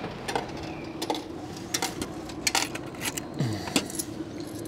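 Japanese food vending machine dispensing a boxed item. Its motor hums steadily from just after the start, with a run of sharp clicks and clatters as the mechanism works, and a short low falling sound about three and a half seconds in.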